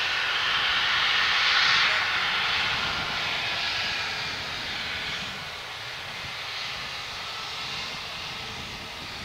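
Airbus A321neo's turbofan engines running at taxi power: a steady rushing whine that fades gradually as the jet rolls past.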